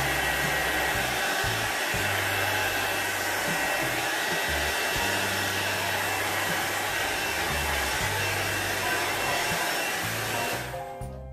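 Handheld hair dryer blowing steadily, drying watercolour paint on fabric, switched off near the end.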